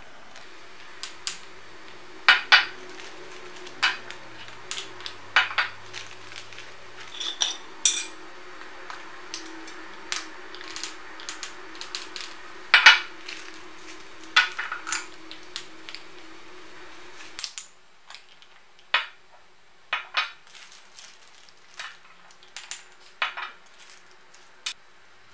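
Metal measuring spoon clinking against small glass spice jars as ground spices are scooped out and tipped into a plastic zip bag: scattered, irregular clinks and taps.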